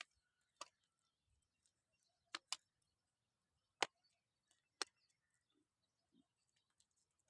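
Near silence broken by about six short, sharp clicks or taps at irregular intervals, two of them close together about two and a half seconds in.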